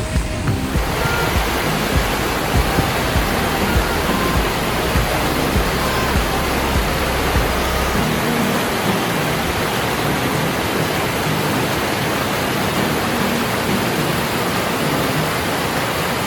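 Rushing water of a mountain stream, a steady even rush, with background music playing over it.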